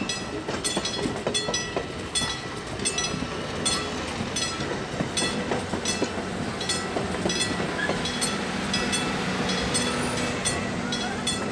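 Passenger cars of a train rolling past, their wheels clacking over rail joints about twice a second above a steady rumble.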